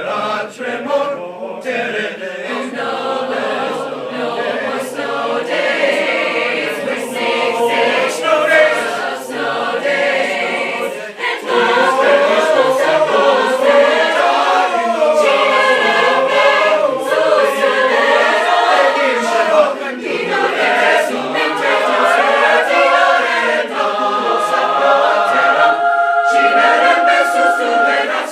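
High school honors choir singing a cappella, several voices in harmony, finishing on a long held chord near the end.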